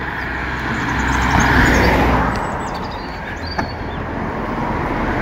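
Motor vehicle running with a steady low engine hum, and a swell of road noise that builds to a peak about two seconds in and then fades.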